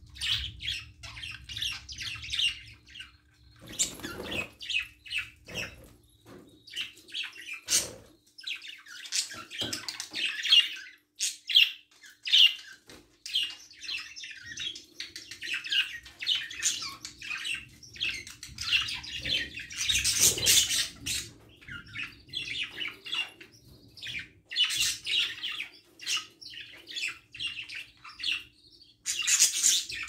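Budgerigars chattering: a dense, continuous stream of short, quick chirps and squawks, with a couple of brief knocks.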